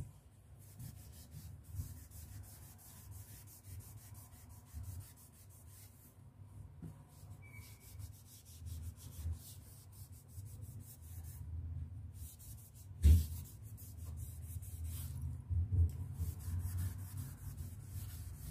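A cloth damp with alcohol being rubbed back and forth over a wall, scrubbing off crayon marks: an uneven, soft scraping. A single sharp knock comes about two-thirds of the way through.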